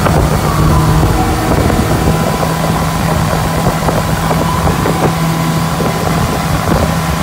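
A motorboat engine running steadily while towing a wakeboarder, with the rush of the boat's wake and wind on the microphone.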